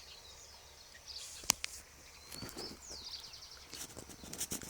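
Birds calling with short downward-gliding notes over steady outdoor background noise. A single sharp click about a second and a half in, and a few more clicks near the end.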